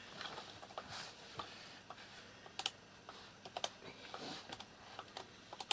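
Faint, irregular clicks and rustling from a child's electronic toy being handled and fiddled with.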